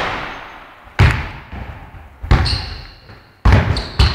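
Basketball bouncing on an indoor court: five sharp bounces about a second apart, each ringing on and fading in the hall.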